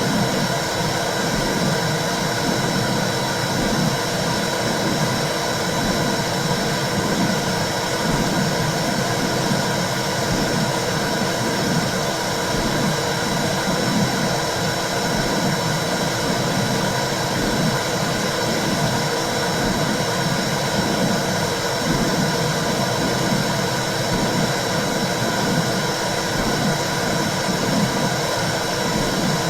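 Womb sound for soothing babies: a steady, low whooshing noise like blood flow heard inside the uterus, with a faint steady high tone above it.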